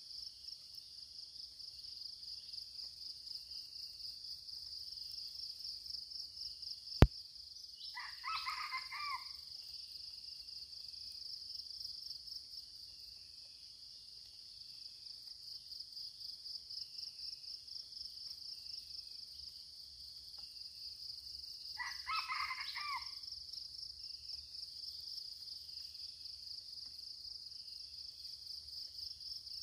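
A single sharp air-rifle shot about seven seconds in, over a steady pulsing chorus of insects. A red junglefowl crows twice, about a second after the shot and again later, each crow short, about a second long.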